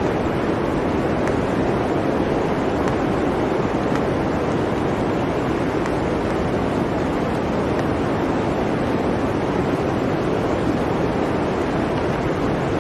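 Blizzard wind, a steady, even rushing with no gusts or breaks.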